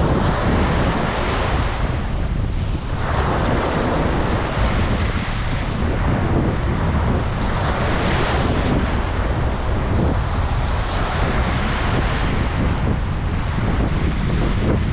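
Ocean waves breaking and washing on a beach, the surf swelling and easing every few seconds, with wind buffeting the microphone in a steady low rumble.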